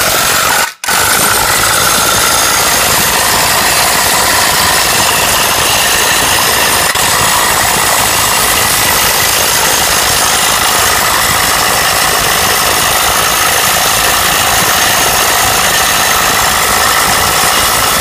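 Impact wrench running hard as it turns the screw of a ball joint press, pressing a new fan clutch bearing into a Jeep 4.0 A/C compressor bracket. It stops for a moment under a second in, then runs on without letup.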